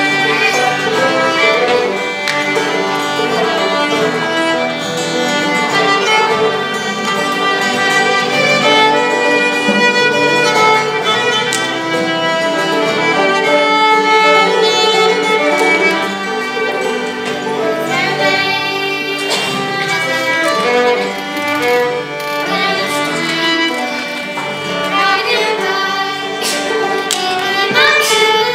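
Small acoustic string band playing a tune, the fiddle carrying the melody over strummed acoustic guitar; a young girl's voice comes in singing near the end.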